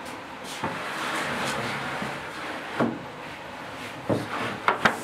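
A large 20 mm plywood sheet being laid onto the CNC table's metal square-tube base beams: a scraping slide and several knocks as it settles, the sharpest ones close together near the end.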